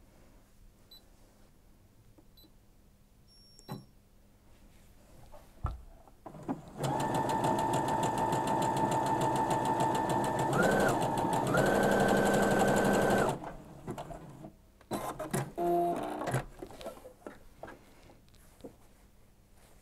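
Brother M280D computerised sewing machine stitching through fabric for about six seconds: the motor's whir and the rapid needle strokes. The pitch dips briefly about halfway through, and the machine then stops abruptly. A few short mechanical clicks and whirs follow.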